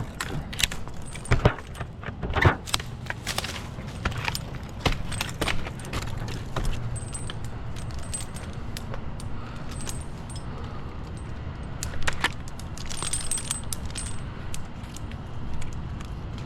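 Metal climbing hardware (carabiners and lanyard snaps on a tree climber's harness) clinking and jangling in irregular clicks as he moves and ties in, busiest early on and again near the end.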